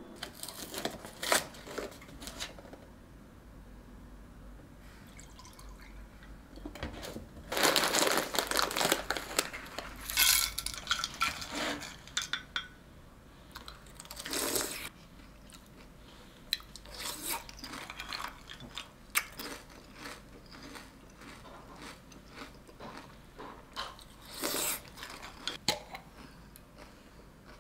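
Tabletop food-handling sounds from a glass mug of cereal in milk and a glass yogurt jar being opened and spooned: short separate bursts of clinks and rustles, the longest about a third of the way in.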